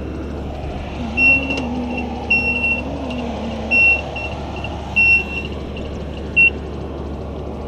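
Aerial ladder truck running with a steady low drone while the ladder moves, overlaid by a series of short, unevenly spaced high electronic beeps. A low wavering hum comes in for a few seconds near the start.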